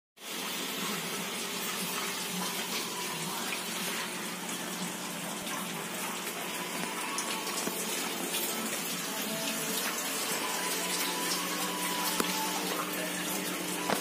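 Steady rush of running water at a Samsung single-tub top-loading washing machine, a machine with a fault that makes water keep flowing out through its drain.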